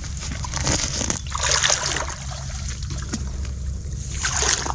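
Shallow muddy water splashing and sloshing in irregular bursts as people wade and grope by hand in the mud for mussels, over a steady low rumble.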